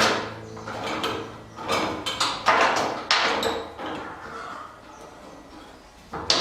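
Several sharp knocks and scraping, sliding sounds of parts being handled, fading quieter after about four seconds.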